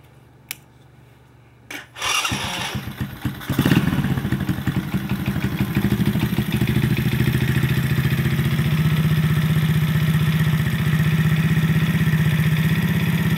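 A homemade scooter's small two-stroke engine starts about two seconds in, after a couple of sharp clicks. It runs unevenly and revs as it catches, then settles into a steady idle.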